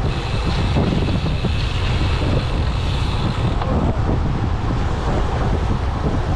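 Wind buffeting the microphone of a camera carried on a moving bicycle: a steady, loud, low rumble.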